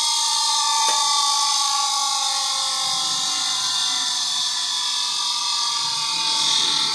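Bench grinder's abrasive wheel spinning: a steady high whine over a hiss, its pitch sinking slightly over several seconds.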